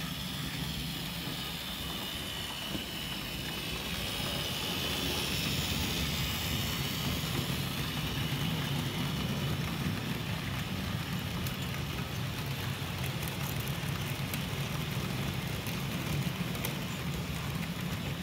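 HO-scale model freight train rolling past on the track: a steady low rumble and hum of the wagons' wheels on the rails, a little louder after the first few seconds, with faint light clicks in the second half.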